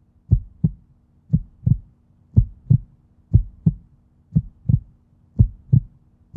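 Heartbeat sound: a steady lub-dub, paired low thumps about once a second, over a faint steady hum.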